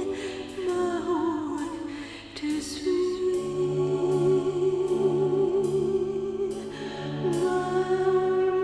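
Slow music with a sung melody: a voice holds long notes with vibrato over a soft sustained accompaniment.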